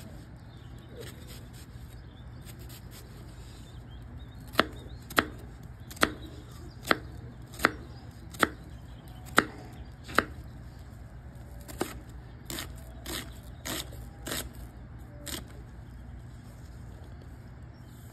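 Chef's knife chopping an onion on a thick wooden log-slice cutting board. About eight sharp knocks of the blade hitting the board come a little under a second apart, then a run of softer chops follows.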